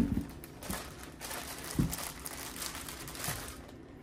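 A bag of potatoes crinkling as a hand rummages in it and pulls a potato out, with a few soft knocks.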